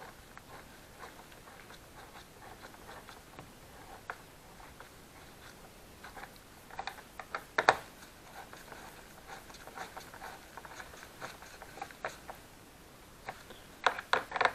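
Gloved hands fitting Torx screws and small parts into the fuel filter housing of a plastic snowmobile fuel tank: faint scraping and light taps, with a sharper click about seven and a half seconds in and a few quick clicks near the end.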